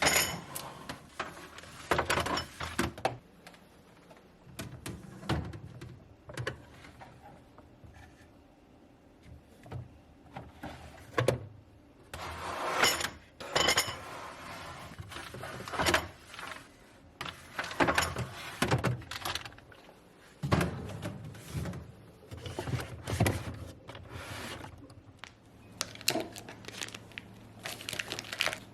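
Objects being handled by hand: a run of irregular knocks, clicks and rustles, spaced unevenly, as containers and packages are picked up and set down.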